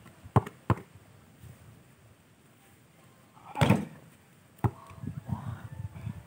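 Basketball bouncing twice on hard-packed dirt early on. A louder burst of noise follows, then a sharp knock as the shot strikes the backboard, with a few low thuds after it.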